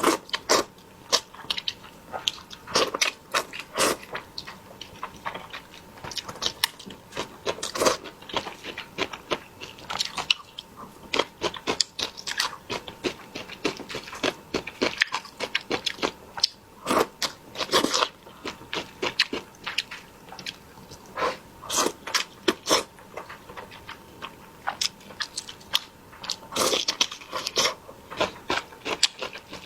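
Close-miked eating: irregular chewing and crunching with wet mouth clicks, some bites sharper than others.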